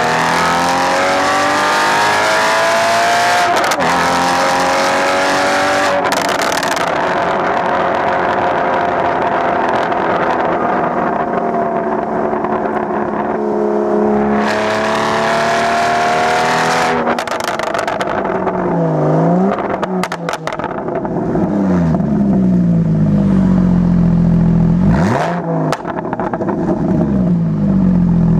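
Porsche Boxster 981's straight-piped flat-six exhaust under way with a manual gearbox. It accelerates with rising revs, breaks for a gear change about four seconds in, then holds a steady cruising note. In the last third it drops and climbs in pitch several times in quick swings, then settles to a low, steady drone.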